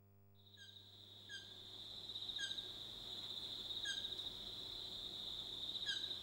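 Insects trilling steadily at a high pitch, fading in just after the start, with a short chirp from another animal five times at uneven intervals.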